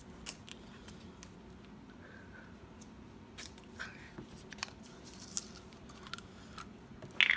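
Plastic vegetable oil bottle being handled and its cap worked open: scattered small clicks and crinkles of plastic, with one louder crackle near the end.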